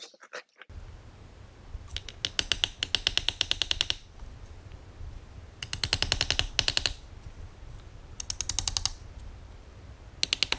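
Hammer tapping a wood chisel in four quick bursts of rapid light blows, about ten a second, to cut a hinge mortise into a wooden door jamb.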